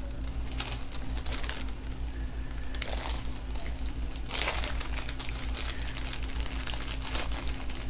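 Cigar packaging being handled, crinkling and rustling irregularly, with a louder rustle about four and a half seconds in. A steady low electrical hum runs underneath.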